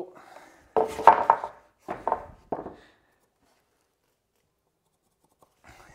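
Pressure-treated timber board knocking against the wooden jig as it is handled: a quick cluster of knocks about a second in, then two single knocks before it goes still.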